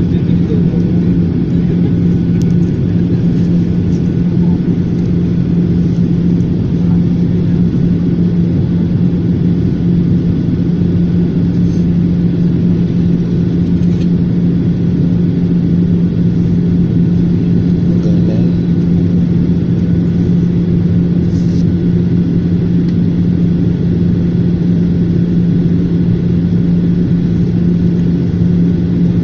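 Airliner cabin noise on approach: the steady rumble of the jet engines and rushing air, with a strong low hum.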